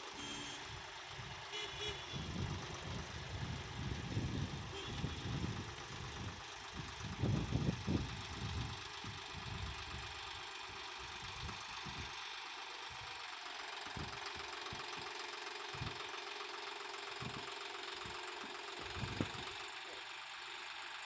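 Tractor engine running as its front loader lifts a clamped stack of concrete paver blocks, with an uneven low rumble that swells about seven seconds in and then settles.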